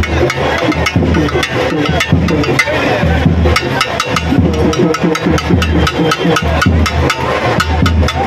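Festival drums beaten in fast, dense strokes, with crowd voices mixed in.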